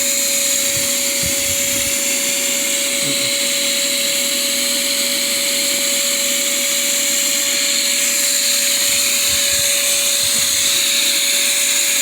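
Vacuum running steadily, a constant whine over a loud hiss, used to suck small hive beetles out of a honeybee hive.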